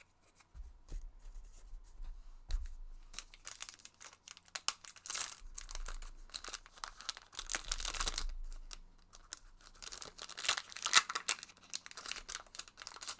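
A foil booster pack being torn open and its wrapper crinkled and handled, in repeated bursts of ripping and crackling.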